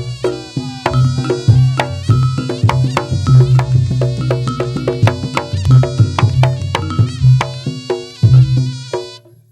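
Instrumental passage of a Javanese song played by a band through a large, loud sound system: a heavy booming bass beat and quick percussion strikes under pitched melodic instruments. The music cuts out briefly near the end.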